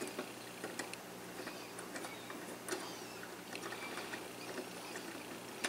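Small, irregular clicks and scrapes of fingers handling the tiny nut and hands on the centre shaft of a battery clock movement while fitting the minute hand.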